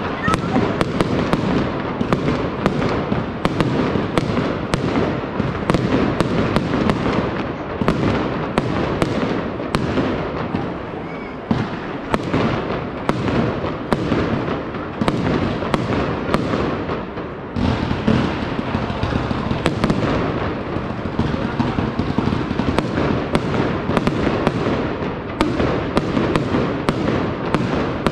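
Fireworks display: a rapid, unbroken run of bangs and crackles, several a second.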